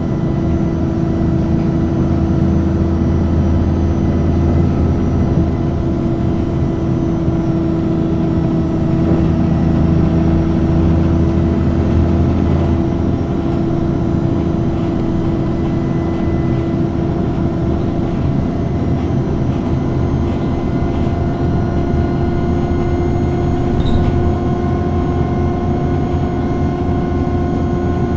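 Cummins ISBe diesel engine of an Alexander Dennis Enviro200 Dart bus running steadily, with a constant tone over a low rumble. The rumble eases a little about halfway through.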